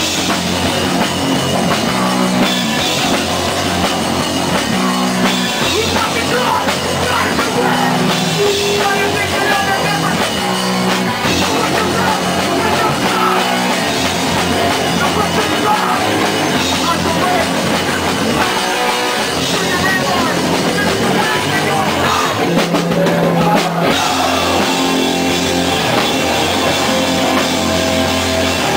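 Hardcore punk band playing live: loud distorted guitars, bass and drum kit.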